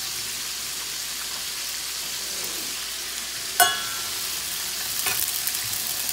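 Chicken frying in hot oil, a steady sizzle. A little past halfway a sharp clank rings briefly, and a few lighter clinks follow near the end.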